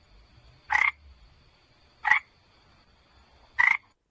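A frog croaking: three short croaks, about a second and a half apart, over a faint steady high tone.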